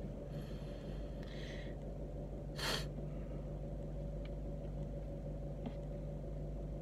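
A man breathing out softly through his nose, then a quick, sharp sniff about two and a half seconds in, over the steady low hum of a car cabin.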